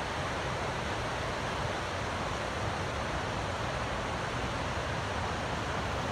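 River water rushing over the rocky steps of a low dam: a steady whitewater rush.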